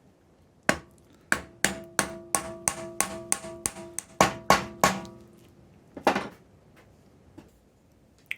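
A hammer tapping a dust cap onto a Triumph TR7 front wheel hub: about a dozen quick metallic strikes, roughly three a second, each leaving a ringing tone, then one more strike a second later.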